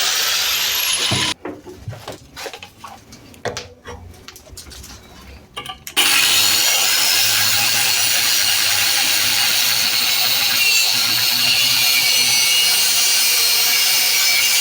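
Handheld power tool running against the rusted metal of an EGR bypass valve to get past its seized screws. It cuts off about a second in, a few seconds of clicks and knocks follow, and it starts again steadily about six seconds in.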